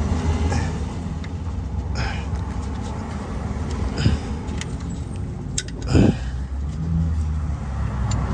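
Hand tools working on alternator bolts: a few sharp metallic clicks and clinks as the bolts are loosened, the loudest a clank about six seconds in, over a steady low vehicle rumble.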